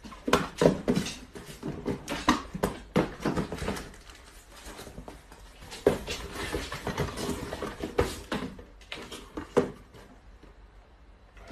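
Small cardboard boxes being handled and set down on a tile floor: an irregular run of sharp knocks and scrapes that thins out near the end.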